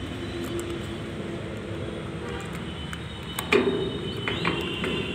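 Steady road traffic noise with a low engine hum. About three and a half seconds in comes a sharp click, followed by a few lighter clicks.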